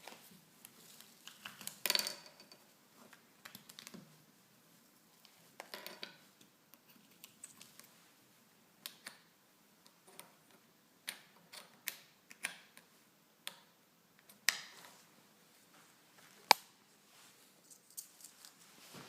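Scattered light clicks, taps and brief rustles of small parts being handled, with a short rustle about two seconds in and one sharp click late on.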